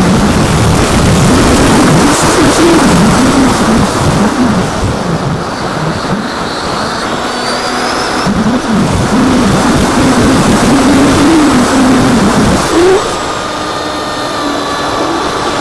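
Air rushing past the onboard camera of a foam FPV model plane, over the buzz of its electric motor and propeller. The motor pitch rises and falls repeatedly as the throttle changes.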